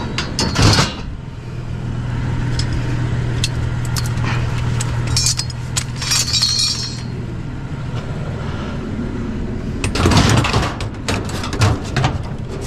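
Hard scrap items clinking and clattering as they are handled and set down, in several bursts of sharp knocks and chinks, over a steady low hum.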